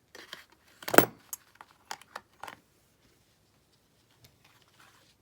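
Metal clinks and clacks of Lockwood padlocks and their keys being handled. There is a quick run of clicks in the first half, the loudest about a second in, and a few faint ticks near the end.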